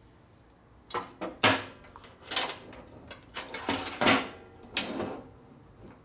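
Hard objects being handled and rummaged through: a quick string of about eight clattering knocks and rattles, starting about a second in and lasting about four seconds.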